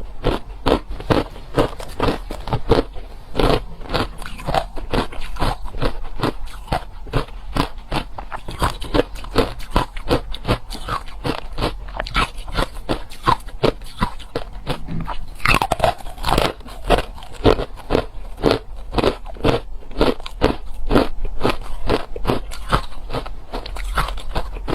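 Crushed and hard ice being bitten and chewed: a continuous run of sharp crunches, several a second. About two-thirds of the way through there is a brief falling squeak.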